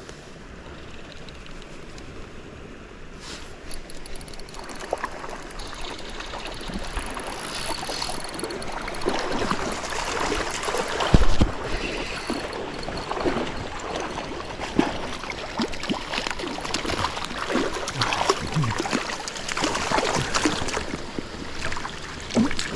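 Creek water running and splashing, louder and busier from about four seconds in, with one low thump near the middle.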